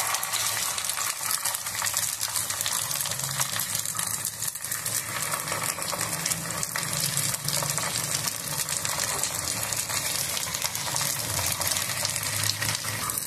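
Balls of mashed potato frying in shallow oil in an appe pan: a steady crackling sizzle, with light scraping as a spoon turns them over.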